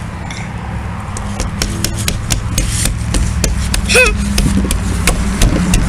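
Slime being kneaded and squished by hand, with many sharp crackling pops over a steady low hum. A short high squeal about four seconds in.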